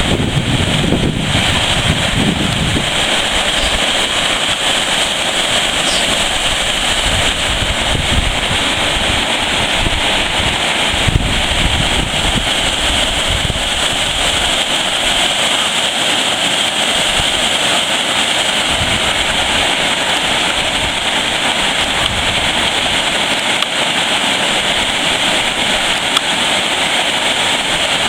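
Wilge River waterfall: a loud, steady rush of falling water, with gusts of wind buffeting the microphone, strongest in the first few seconds.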